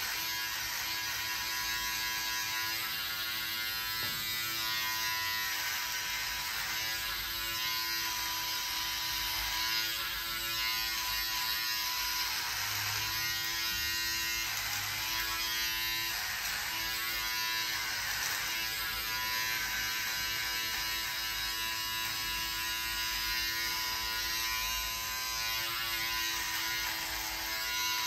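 Electric beard trimmer running with a steady buzz as it is passed over beard stubble. Its buzz wavers and dips a few times around the middle as the blades cut into the beard.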